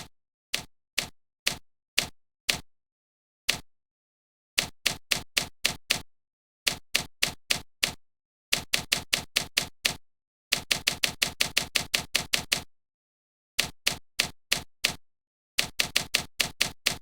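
Sharp clicks like keystrokes: single strikes at first, then quick runs of several a second with pauses between, and dead silence between the strikes.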